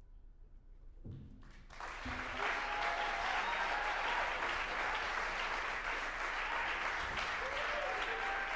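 A hush just after the final note, then audience applause breaks out about two seconds in and carries on steadily.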